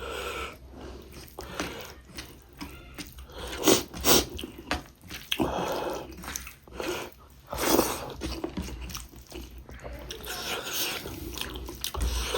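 Close-miked eating of a pork ribs and rice meal: irregular chewing, biting and wet mouth smacks and clicks, with a couple of louder bites about four and eight seconds in.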